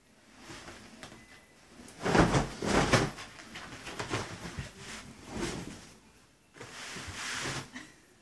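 A cotton bedsheet being shaken and flapped out over a bed, rustling and whooshing in several swishes, the loudest about two seconds in.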